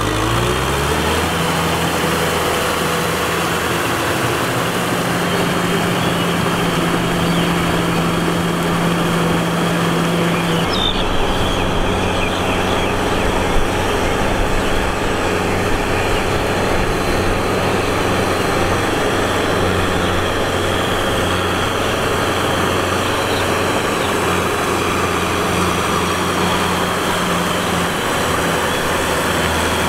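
Kubota M6040 tractor's four-cylinder diesel engine running while it drags a rear rotavator through flooded paddy mud. The engine rises in pitch in the first second or so, then runs steadily, its tone shifting about ten seconds in.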